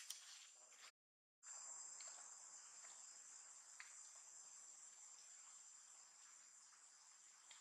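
Faint, steady, high-pitched insect chorus, an even buzzing drone, cut off for a moment about a second in before it resumes.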